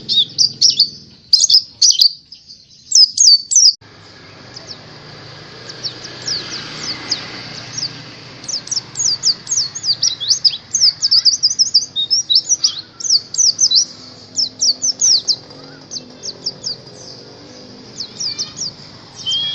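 White-eye (pleci) singing a fast, high chirping song in quick runs of notes, with a short pause about two to four seconds in before it carries on.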